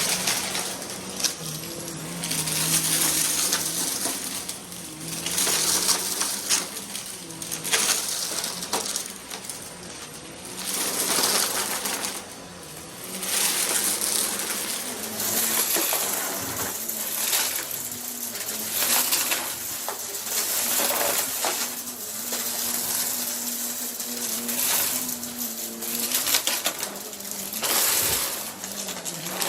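Upright vacuum cleaner running on a carpet, its motor noise swelling and fading roughly every two seconds as it is pushed back and forth in quick strokes.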